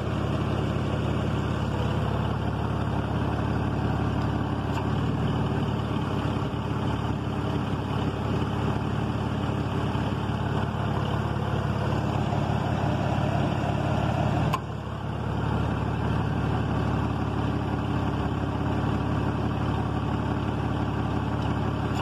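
Ford van's engine idling steadily with the hood open and the air conditioning switched on. About two-thirds of the way through there is a single sharp click and the running sound briefly dips before settling again.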